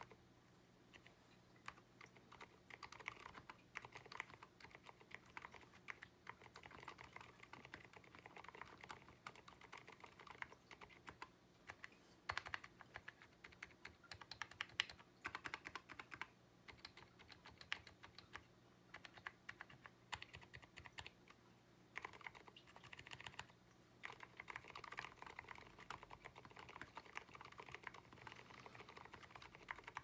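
Continuous typing on an Abko AR87 mechanical keyboard with fully lubed Aliaz switches: a quiet, fast run of key presses with a few brief pauses.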